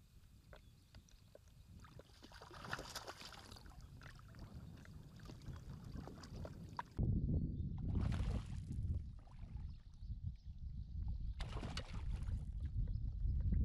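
Water splashing and sloshing around a float tube as a hooked black bass fights at the surface. About halfway through, the sound changes abruptly to a heavy low rumble on the microphone, with further splashy surges.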